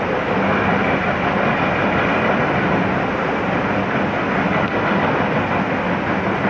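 Flash-flood water rushing past in a loud, steady torrent.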